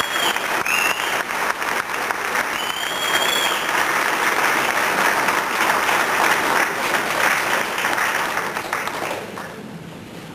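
Audience applauding a school concert band after a piece, with a few high whistles in the first few seconds. The clapping thins out and fades near the end.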